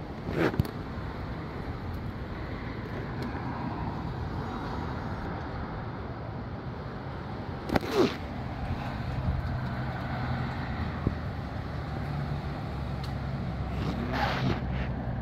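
Gusty wind blowing through trees and over the microphone, a steady rushing noise broken by three brief loud bursts. A steady low hum comes in about halfway through.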